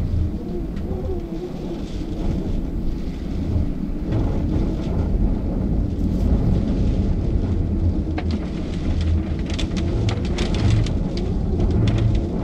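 Thunderstorm wind rumbling steadily on the microphone, with raindrops tapping sharply and more thickly in the second half.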